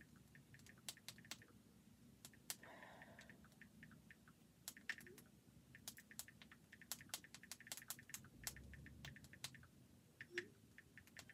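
Faint, irregular tapping and clicking of typing, in near silence over a low room hum.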